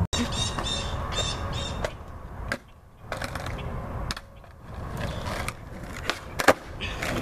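Skateboard wheels rolling on pavement, then a sharp wooden clack of the deck popping and landing about six and a half seconds in: a kickflip attempt.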